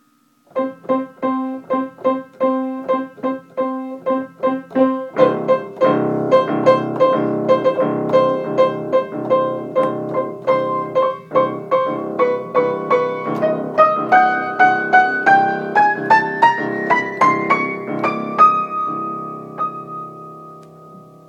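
Upright piano improvisation played by hand: after half a second it starts with one note repeated about three times a second, fills out into repeated chords about five seconds in, climbs in a rising run of notes, and ends on a held chord left to ring.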